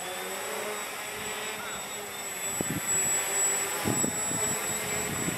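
Walkera Hoten-X quadcopter's motors and propellers humming in flight, a steady pitched drone that shifts slightly as it manoeuvres. Low rumbling bursts come in about two and a half and four seconds in.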